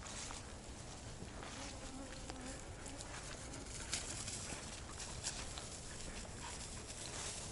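Mosquitoes whining close by, with footsteps brushing through grass and a couple of sharper clicks about four and five seconds in.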